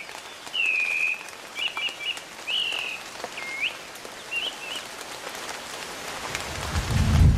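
Series of short whistled bird calls, some rising, some falling and one dipping, over a steady rain hiss; from about six seconds in a deep thunder rumble builds up.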